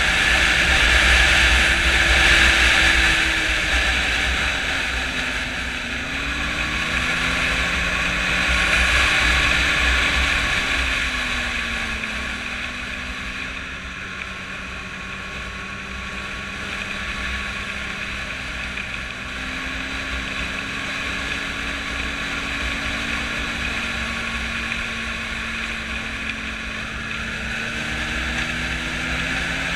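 Snowmobile engine running at trail speed, its pitch rising and falling several times as the throttle changes. A low wind rumble on the microphone runs under it.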